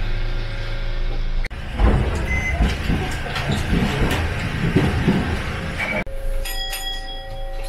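Toden Arakawa Line streetcar under way on its rails: a steady low rumble that grows louder and rougher for a few seconds. Near the end the running noise drops back, with a few clicks and a steady high tone.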